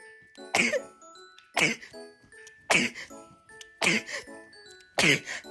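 A person sneezing rapidly over and over, five sneezes about a second apart, each with a voiced sound that drops in pitch. Light background music plays underneath.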